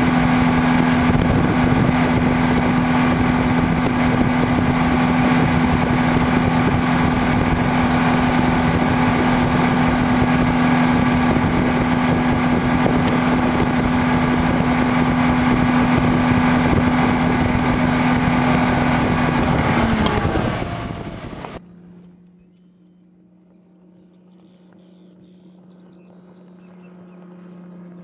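Yamaha VMax SHO 250 hp four-stroke outboard running at a steady pitch, heard from aboard the boat while towing a barefoot skier, over a rush of wind and water noise. About 20 s in the pitch falls and the sound cuts off abruptly. After that an outboard is heard faintly from a distance, slowly growing louder.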